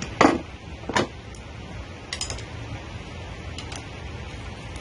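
Metal clinking: two loud clanks about three-quarters of a second apart, then a few lighter clicks, over a steady low hum.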